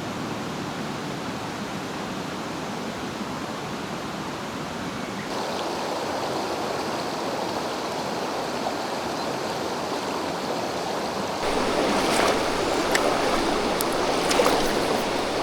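Mountain stream water rushing over rocks, a steady hiss that gets abruptly louder about five seconds in and again near the last third, with closer splashing in the last few seconds.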